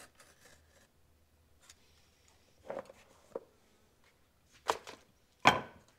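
Hand shears cutting through thick leather stock: a few short, sharp snips spread through the second half, the loudest near the end.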